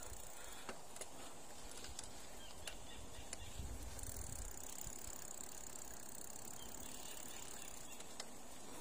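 Quiet outdoor ambience: a steady faint high hiss with a few scattered faint clicks and a brief low rumble about four seconds in.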